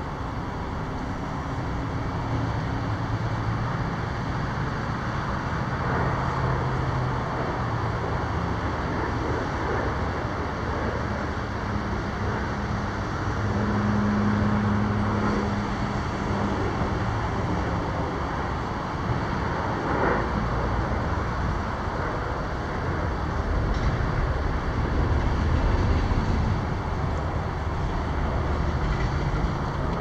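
Steady road traffic: a continuous rush of passing vehicles, with low engine hum that swells and fades as they go by.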